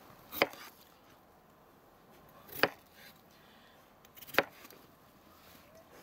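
A kitchen knife chopping through raw potatoes onto a wooden cutting board: three sharp chops about two seconds apart.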